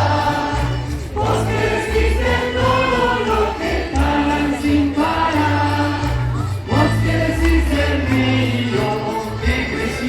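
Large mass choir singing a sustained, slow-moving melody over a low bass line.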